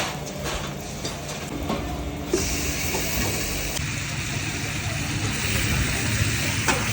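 Mutton karahi sizzling in a wok. A loud hiss starts suddenly about two seconds in and stays steady over a low rumble, after a few light utensil clicks.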